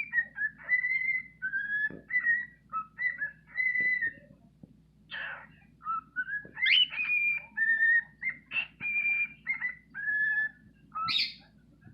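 Male cockatiel singing: a run of clear whistled notes, mostly held or gently gliding, with a pause of about a second partway through and a short, harsher call near the end.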